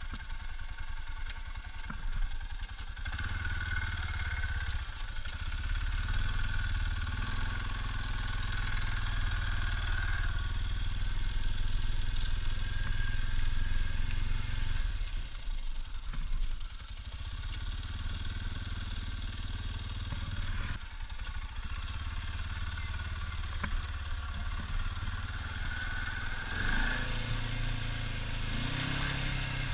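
ATV engine running under way, growing louder a few seconds in and easing off briefly twice before picking up again.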